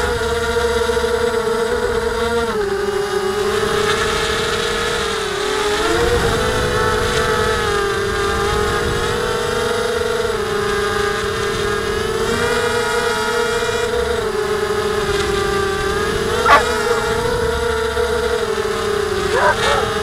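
Blade 200 QX quadcopter's motors and propellers whining, heard from the camera on board, loaded with the extra weight of the camera; the pitch rises and falls as the throttle changes. A dog barks twice near the end.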